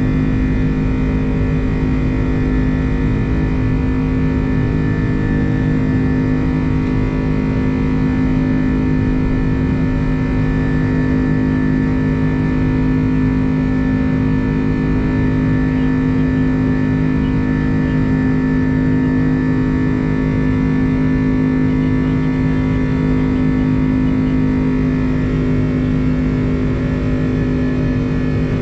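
Airbus A330 jet engines heard from inside the cabin: a steady, loud drone with several steady humming tones over a rumble.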